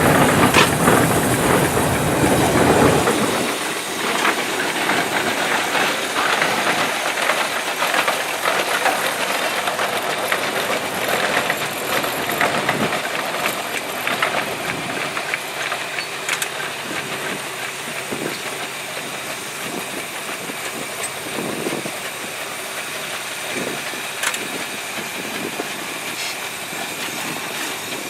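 Half-scale Case steam traction engine running a sawmill: a steady hiss of steam with faint rhythmic exhaust chuffs and clatter. It is louder and fuller for about the first three seconds, then settles to an even level.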